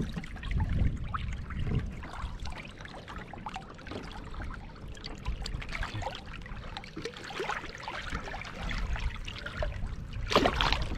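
River water splashing and trickling at the boat's side as a hooked nase thrashes at the surface and is lifted out, dripping. A louder splash near the end as the fish is lowered back into the water by hand and released.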